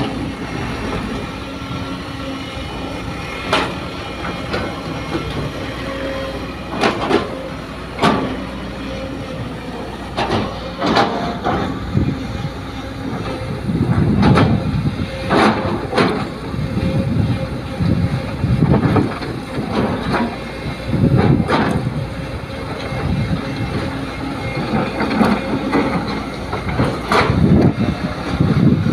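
Sumitomo hydraulic excavator's diesel engine running steadily under load, with repeated sharp clanks and knocks as the bucket digs and moves soil. From about halfway on the engine surges heavily in bursts as the arm works.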